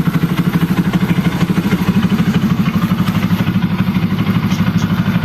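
Rouser RS200 single-cylinder engine idling steadily through an aftermarket twisted elbow header without resonator and an Akrapovic M1 muffler, an even, rapid exhaust pulse with no revving.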